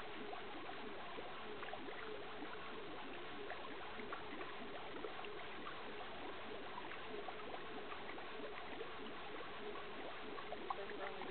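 Magic Maid (Taylor Model JW-5) portable wringer washer agitating clothes in its tub of water: a steady churning and sloshing with many small splashes.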